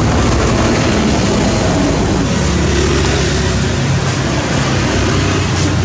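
Steady street noise: traffic running with a constant low engine hum.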